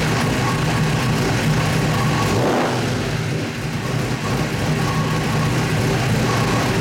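A 540 cubic-inch Mopar B1 big-block V8 with 2-inch headers running on an engine dynamometer at a steady speed, with a brief dip in level about two and a half seconds in.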